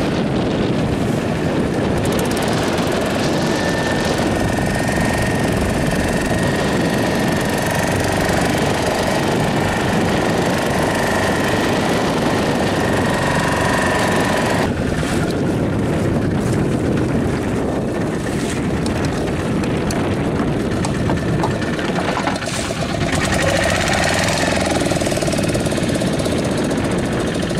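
Small fishing boat's engine running steadily, mixed with wind and sea noise. The sound changes abruptly about halfway through.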